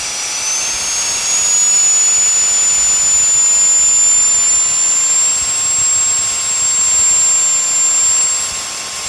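Reikiya HV-C11 cordless handheld vacuum/air duster running in blower mode, its small high-speed motor giving a loud, high-pitched whine with a rush of air. The whine climbs in pitch in small steps and grows louder about a second in as the power level is stepped up.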